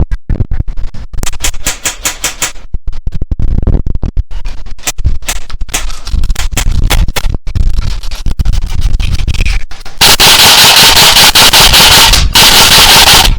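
Airsoft electric guns firing in short bursts and single shots, sharp snapping clicks over a low rumble of wind on the microphone. About ten seconds in, loud wind noise buffets the microphone, and clicks go on through it.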